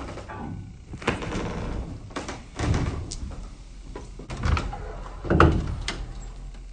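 Lid of an old wooden chest being handled and lifted open: a stretch of scraping about a second in, then several wooden knocks, the loudest a little over five seconds in.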